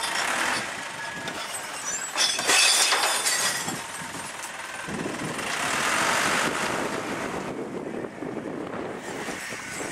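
Split-compartment recycling truck running at the kerb. About two seconds in, a crate of mixed recycling is tipped into its side compartment with a loud clattering crash. The truck then moves off.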